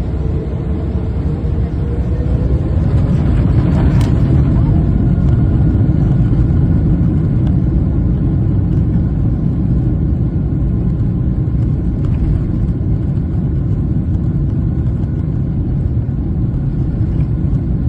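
Boeing 777-300ER's GE90-115B engines spooling up to takeoff thrust: a rising whine over the first few seconds, then a loud, steady rumble of the takeoff roll, heard from inside the cabin.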